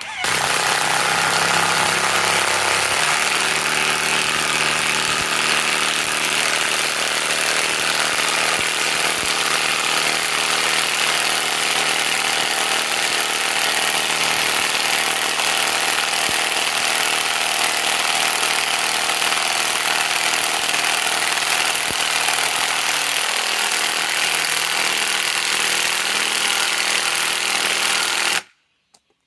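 Bauer 2085CR-B brushless high-torque cordless impact wrench running continuously under load as it drives a leg down, its tone shifting slightly about three seconds in and again near the last third. It stops abruptly shortly before the end.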